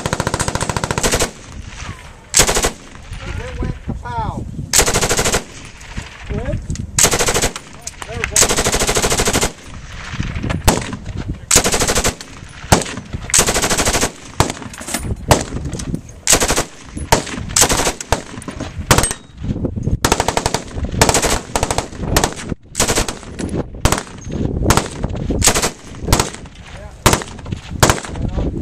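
Polish RPD light machine gun in 7.62×39mm firing full-auto in a string of bursts, some short of a few rounds, the longest about a second and a half, with brief gaps between them.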